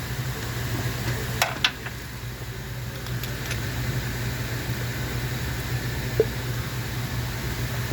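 2018 Ford F-150's V8 engine idling steadily, with a few sharp clicks about a second and a half in and another near six seconds.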